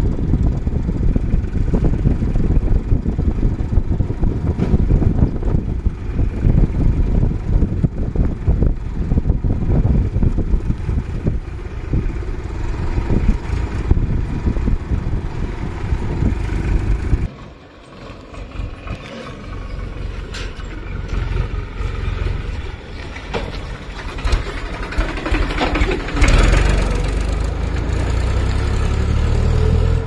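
Tractor diesel engine running steadily while hauling a loaded trolley, heard along with rough road and wind noise. The sound drops sharply a little past halfway. Near the end a tractor's engine hum grows loud as it comes close.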